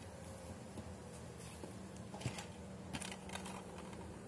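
Faint scattered clicks and light rustling of plastic DVD cases being handled and swapped, over a low steady hum.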